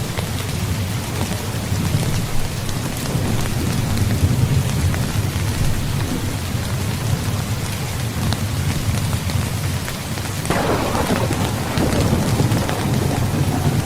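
Heavy rain falling steadily, with a low rolling rumble of thunder underneath. About ten seconds in, a new thunderclap breaks in and rolls on.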